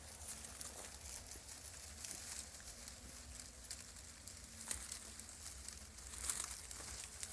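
Faint rustling and crinkling with scattered light clicks.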